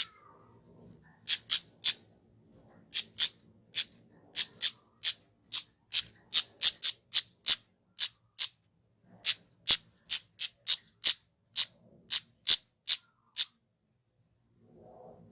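Kemade flowerpecker calling: a long run of short, sharp, high 'tsit' notes, two to four a second in an uneven rhythm with a brief pause midway, stopping shortly before the end.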